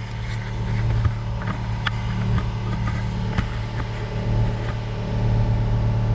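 Steady low mechanical hum, engine-like, with scattered light clicks and taps of a small flathead screwdriver prying at the plastic brake light switch.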